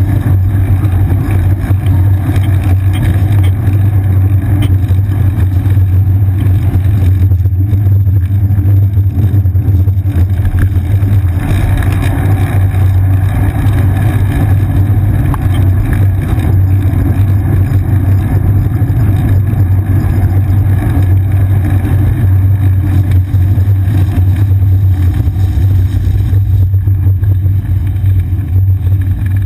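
Steady low rumble of wind and road vibration on a seat-mounted GoPro Hero 2 on a moving bicycle, mixed with the noise of city traffic, with buses and cars passing close by.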